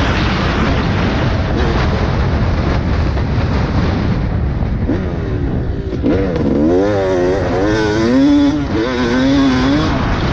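Dirt bike engine revving up and down while ridden, over a steady rush of wind noise; the revs swing quickly from about halfway through.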